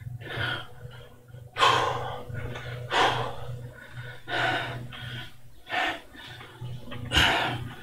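A man breathing hard with exertion through a set of one-arm dumbbell overhead presses: a sharp exhale or gasp about every one to one and a half seconds, with a low steady hum underneath.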